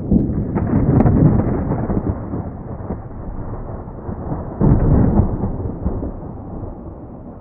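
Deep rumbling noise that swells twice, at the start and about five seconds in, then fades away.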